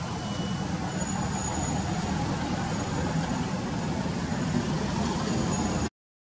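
Steady outdoor background noise, a low rumble with a faint hiss over it and no clear calls; it cuts out to silence for about half a second near the end.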